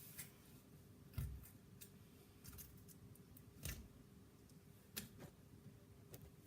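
Faint, scattered clicks and crackles of a crunchy bead-filled putty being squeezed and poked, a few separate clicks spread over several seconds.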